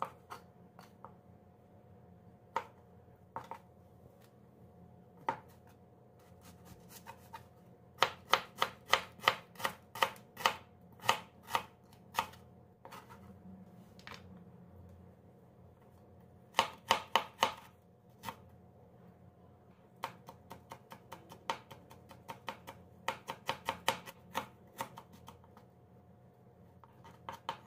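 Chef's knife chopping on a plastic cutting board, slicing a red onion and then finely chopping ginger. A few scattered knocks at first, then quick runs of sharp knocks, about three a second, near the middle and again in the latter part.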